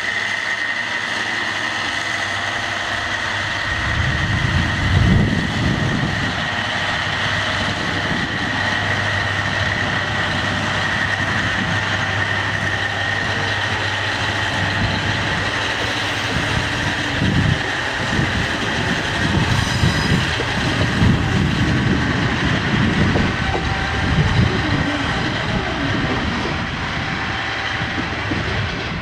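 JR East KiHa 47 and KiHa 40 diesel railcars with their original DMF15HSA diesel engines running as the set moves slowly through the station tracks. From about four seconds in the engine rumble grows and wheels knock over rail joints and points, with a steady high whine throughout.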